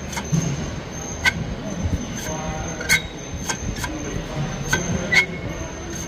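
Dual-mass flywheel from a DSG Volkswagen Golf being moved by hand, giving irregular sharp metallic clicks and knocks, about seven in all. This is the noise the mechanic traces to the flywheel's springs, which he judges must be replaced.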